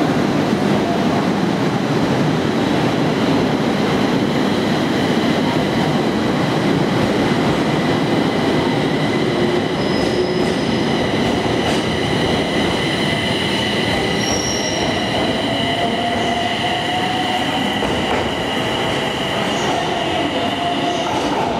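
JR East 701 series and E721 series electric train pulling out of the station: a steady rumble of wheels on rails, with several high-pitched tones held over it. A faint, slowly rising tone joins in the second half.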